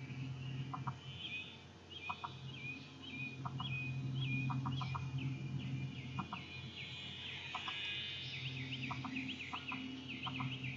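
Small RC biplane's geared electric motor and propeller humming in flight, fading and returning as it circles. Birds chirp in quick repeated notes that come faster near the end, and clicks in pairs sound here and there.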